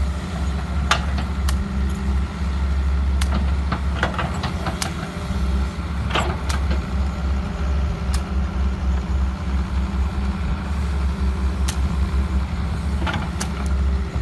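Excavator's diesel engine running steadily under load, with scattered sharp cracks and knocks from the machine's work.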